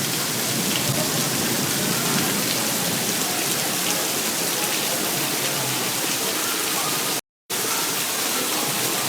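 Heavy tropical rain pouring down in a steady downpour. The sound cuts out completely for a moment about seven seconds in.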